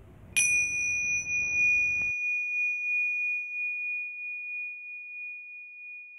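A single bright bell-like chime, struck once and ringing on a steady high tone that slowly fades over several seconds. Faint outdoor background noise under it cuts off abruptly about two seconds in.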